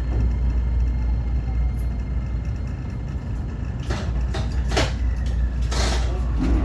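A 125 series electric railcar running with a steady low rumble, with several short hissing bursts about two thirds of the way through.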